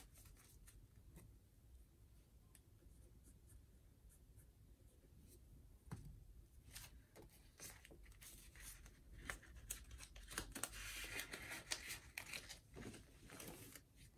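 Faint rustling and crinkling of paper banknotes and the clear plastic pockets of a cash-envelope budget binder being handled, with scattered soft clicks; the handling gets busier about six seconds in.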